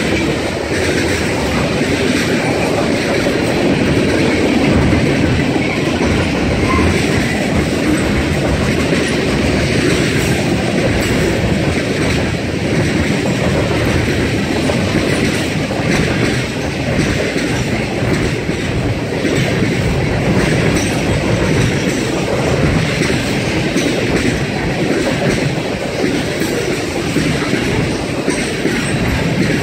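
Freight cars rolling past at close range: a steady, loud rumble of steel wheels on the rails with repeated clacks as the wheels pass over the rail joints.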